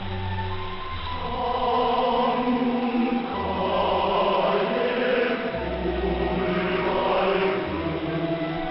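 Choral music with instrumental backing, sustained notes over a bass line that changes every second or so, heard as a shortwave radio broadcast with the sound cut off above about 5 kHz.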